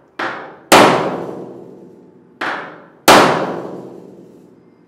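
Claw hammer striking the oversized replacement hinge pin down into a vintage VW Beetle's door hinge, metal on metal. There are four clangs in two pairs, each pair a lighter tap followed by a hard blow, and every blow rings on for a second or more.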